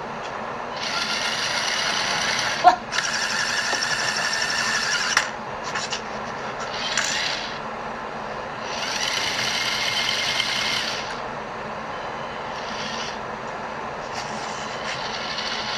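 LEGO Technic Liebherr R 9800 excavator's electric Powered Up motors whirring through their plastic gear trains in several separate bursts as the tracks, boom and bucket are driven. There is one sharp click between the first two bursts.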